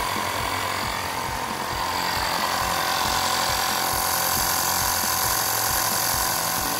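Small portable 12-volt tyre-inflator compressor running steadily with a fast, even pulse, pumping air into a tyre through a hose on the valve stem.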